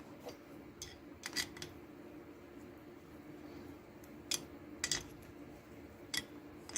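Sharp metal clicks and clinks, about six, spread irregularly, as a wrench tightens a threaded fitting into a boiler, over a steady low hum.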